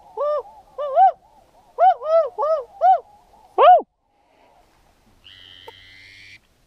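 Hand-blown duck call sounding a run of sharp quacks in quick cadences of four or five, ending on one louder rising-and-falling note. This is calling to ducks sitting out on the water. A soft breathy hiss follows for about a second near the end.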